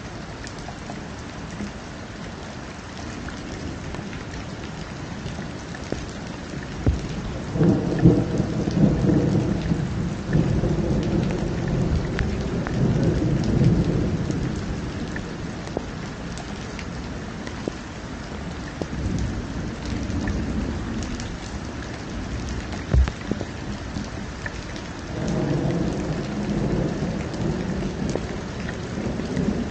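Steady rain with thunder rumbling: a long roll starts about seven seconds in and dies away over several seconds, and a second roll comes near the end.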